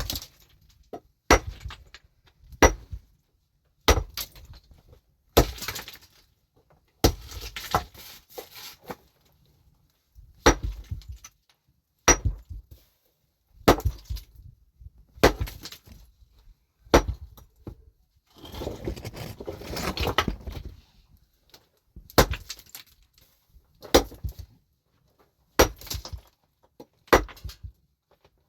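A pickaxe striking rock about every one and a half seconds, each sharp blow followed by a short clatter of broken stone. About two thirds of the way through, a couple of seconds of stones scraping and tumbling.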